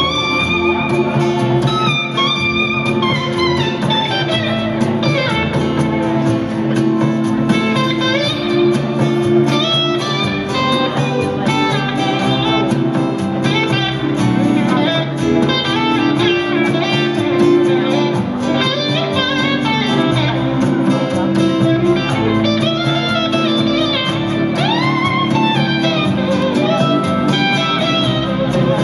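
Live band music: an electric slide guitar plays a solo line of gliding notes over a strummed acoustic guitar.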